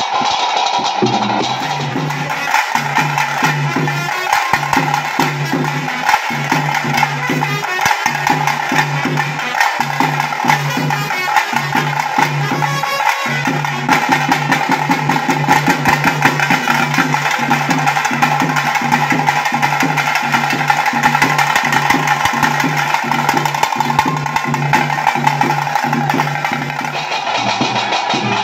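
Tase drums beaten with sticks in a fast, dense rhythm, the drumming that drives a huli vesha tiger dance, over a steady droning tone.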